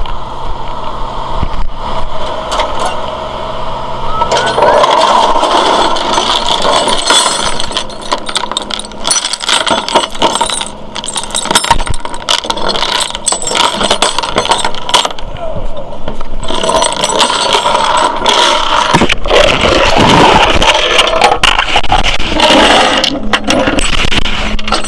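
Rusty steel tow chains clanking and rattling as they are handled on the rollback's metal deck, over the steady hum of the tow truck's engine running.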